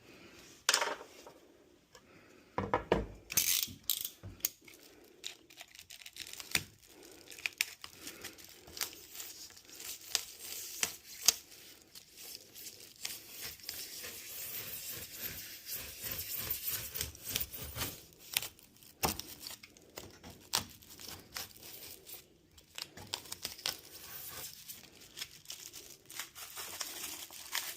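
Stapled-in wall insulation being pulled and torn away, with rustling, crinkling and scattered sharp clicks and knocks.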